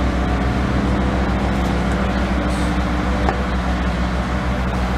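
Steady, loud low mechanical rumble with a constant hum, of the kind a running motor vehicle makes, unchanging throughout with one faint click about three seconds in.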